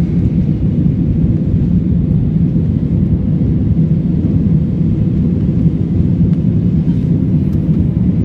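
Airliner cabin noise: a steady, loud low rumble of the engines and rushing air heard inside the cabin while the plane climbs out after takeoff.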